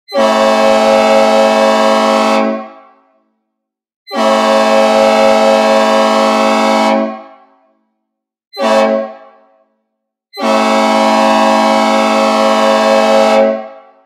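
Synthesized recreation of a Nathan P01235 "old cast" locomotive air horn sounding the grade-crossing pattern: two long blasts, one short blast, then a final long blast. It is a deep, bassy chord, and each blast fades out in a reverberant tail.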